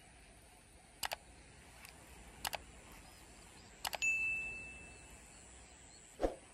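Subscribe-button animation sound effect: three quick mouse double-clicks about a second and a half apart, then a bell ding about four seconds in that rings out and fades over about a second. A dull thump near the end.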